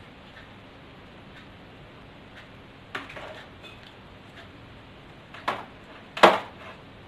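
A few sharp knocks and clicks of hard plastic hair-styling tools being handled and set down, three of them, the loudest near the end. Under them, faint ticking about once a second.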